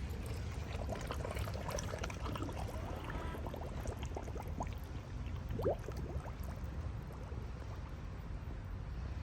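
Water gurgling and bubbling around a cordless robotic pool cleaner as it fills and sinks into the pool, over a low steady rumble, with scattered small bubble ticks and one short rising chirp a little before the six-second mark.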